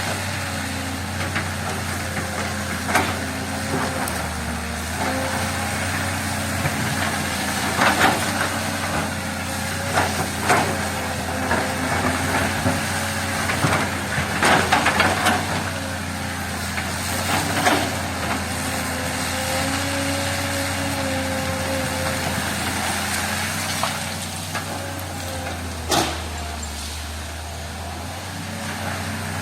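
Diesel engine of a heavy earthmoving machine running steadily, its pitch rising and falling a little as the load changes. Sharp knocks and scrapes come at irregular intervals, with a cluster about two-thirds of the way through and a single loud one near the end.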